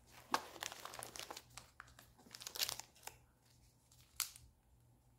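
Crinkling and rustling of plastic packaging as small toiletry items, among them a packet of makeup removal wipes, are handled and pulled out of a fabric bag. It comes in scattered bursts over the first three seconds, with one sharper tick about four seconds in.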